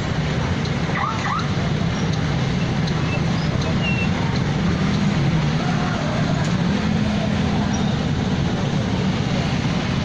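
Motor scooter engine running with steady road noise, its hum drifting slightly up and down.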